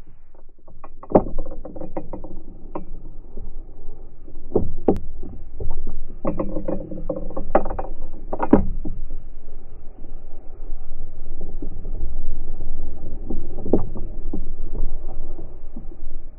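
Camera audio slowed to a fifth of normal speed, so it sounds deep and dull with nothing high in it. Irregular low thuds and knocks come in clusters over a steady low rumble.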